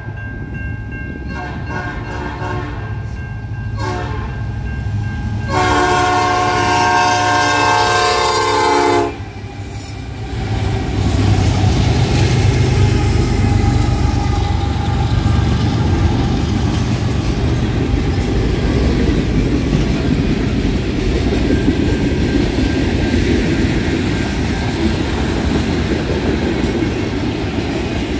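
Diesel freight train locomotive horn blowing for the crossing: a few shorter, fainter blasts, then a long loud chord that cuts off about nine seconds in. The lead locomotives then pass close by with a heavy, steady rumble, followed by freight cars rolling past with the clickety-clack of wheels on the rails.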